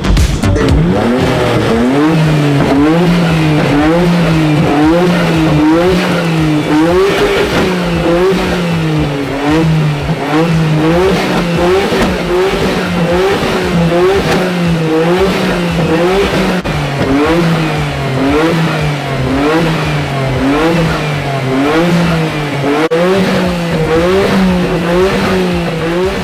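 Car engine revved over and over, its pitch rising and falling about once a second in a steady loud rhythm.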